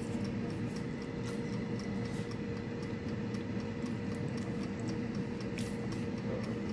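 Necchi air fryer running, a steady fan hum with a faint whine, which stops near the end.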